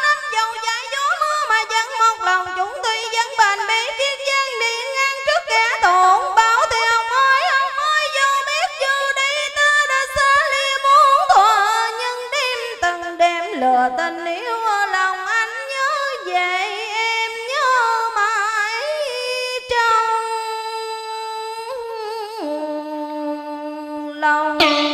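A woman singing solo into a handheld microphone, with sliding, ornamented melodic lines, ending on a long held note near the end.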